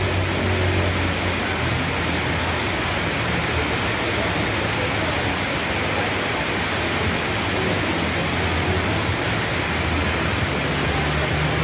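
Heavy rain pouring steadily, a dense even hiss, with a faint low hum coming and going underneath.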